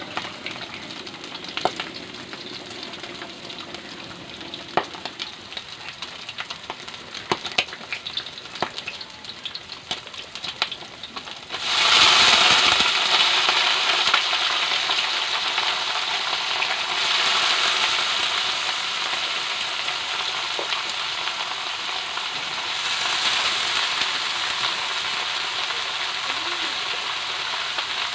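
Diced pork frying in a metal wok, sizzling lightly with frequent sharp pops of spattering fat. About twelve seconds in, chopped bottle gourd (opo) is tipped into the hot oil and the sizzle suddenly jumps to a loud, steady hiss.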